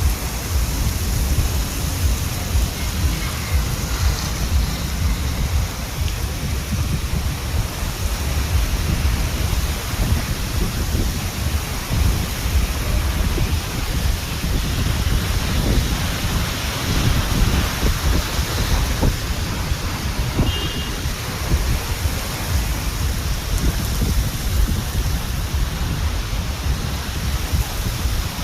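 Rain and wind of a summer storm, a steady rushing noise with a strong, flickering low rumble.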